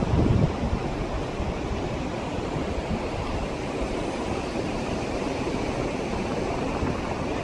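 Wind blowing on the microphone over a steady rush of surf, with a stronger gust in the first half second.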